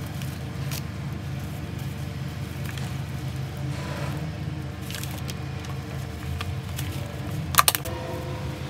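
Plastic bottle planter being handled and pulled off a clump of garlic and soil, with light crinkly clicks and a sharp double click near the end, over a steady low hum.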